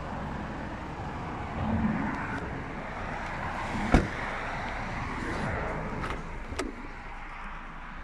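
Honda Civic doors being worked: a sharp thud about halfway through, as a door is shut, then a lighter latch click a couple of seconds later as the rear door is opened, over steady outdoor background noise.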